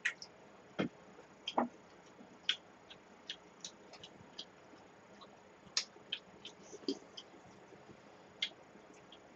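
Eating sounds from spoons and stainless steel bowls of cold acorn jelly soup: irregular soft clicks and taps, about two a second, some with a short metallic ring.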